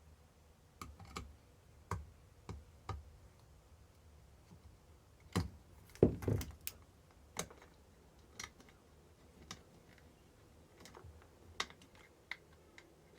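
Irregular light clicks and knocks of plastic torch parts being handled and fitted together, with a louder cluster of knocks about six seconds in.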